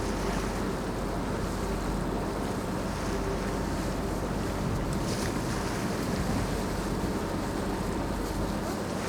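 Tour boat underway: a steady engine hum with water rushing past the hull and wind buffeting the microphone.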